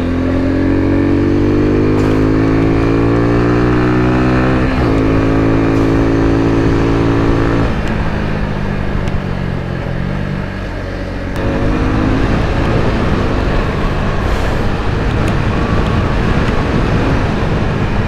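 Suzuki Gixxer 250's single-cylinder engine pulling hard, the revs climbing for about five seconds before an upshift. It holds steady for a few seconds, the throttle rolls off and the revs drop, then it pulls again about eleven seconds in.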